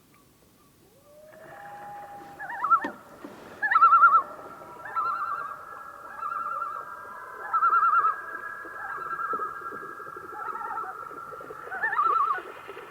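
Several common loons calling over one another, starting about a second in. Wavering tremolo 'laughing' calls come again and again over long drawn-out wails, with a brief sharp click about three seconds in.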